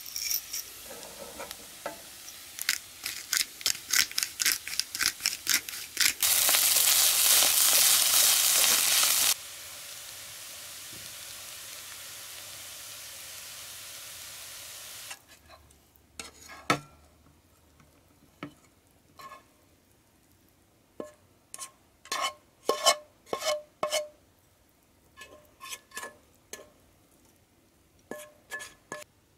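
Fried rice sizzling in a non-stick frying pan while a plastic slotted spatula stirs and scrapes it in quick strokes. The sizzle grows much louder a few seconds in, settles to a steady hiss, then stops about halfway. After that only scattered knocks and scrapes of the spatula against the pan remain as the rice is pushed out onto a plate.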